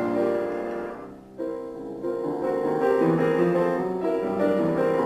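Grand piano played solo, classical Romantic repertoire. A phrase dies away about a second in, and the playing picks up again.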